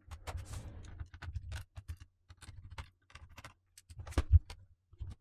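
Irregular small clicks and taps of a screwdriver and the laptop's plastic case being handled as the last case screws are taken out, with two sharper clicks about four seconds in.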